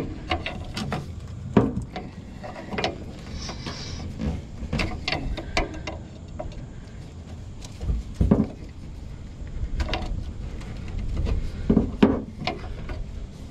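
A steel pry bar levering at the upper mount of a worn front shock absorber to work it free. It makes irregular metal scrapes and clunks, with a few sharper knocks.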